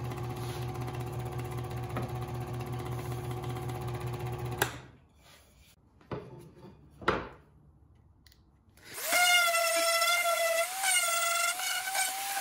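Electric scroll saw running steadily with a pulsing hum, cutting a strip of wood, then stopping abruptly. After a quiet stretch with a couple of knocks, a random orbit sander starts up about nine seconds in and runs with a high whine whose pitch wavers slightly.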